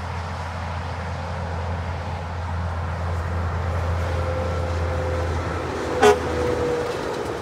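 Heavy truck traffic running past with a steady low drone, and one short, loud toot of a truck's air horn about six seconds in.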